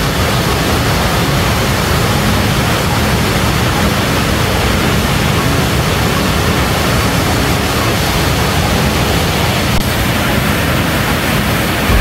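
Athabasca Falls: the Athabasca River pouring over the falls and churning in the plunge below, a loud, steady rushing of water with a deep low rumble.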